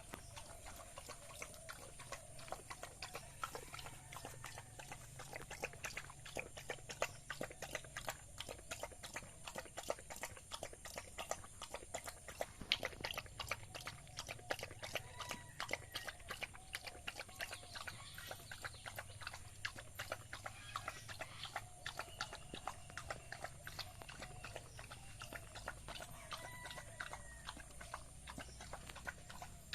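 Dog eating rice: a rapid, continuous run of wet smacking and chewing clicks.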